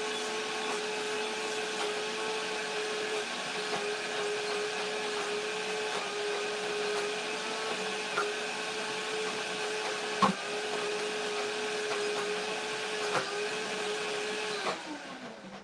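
Optimum G2.6 high-speed blender running on its smoothie program through a thick, creamy mixture: a steady motor whine with a couple of sharp knocks. Near the end the program finishes and the motor winds down, its pitch sliding down as it stops.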